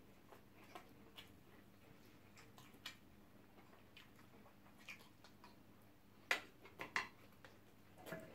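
Sparse, soft clicks and taps of eating: a fork scraping and tapping on a platter of fried rice, with small mouth sounds. The loudest is a quick cluster of clicks about six to seven seconds in.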